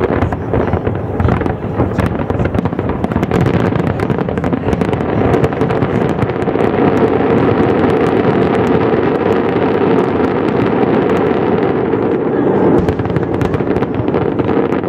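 Aerial fireworks shells bursting in a rapid, overlapping barrage, the bangs merging into a continuous rumble with sharp crackles on top.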